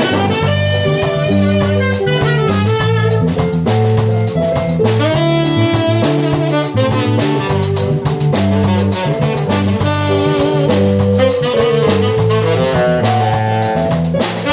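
Live band playing an upbeat lambada-cumbia groove: saxophone, keyboard, guitar and drum kit over a repeating bass line, with steady drum beats.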